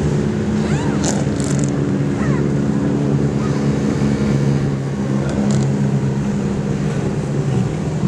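Many race car engines idling and running at low revs together, a steady layered rumble.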